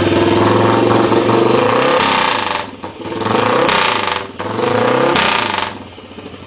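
Matchless G50 racing motorcycle's single-cylinder four-stroke engine running at a fast idle, then blipped three times, each time the revs shooting up and dropping back, before settling to a quieter, lower idle near the end.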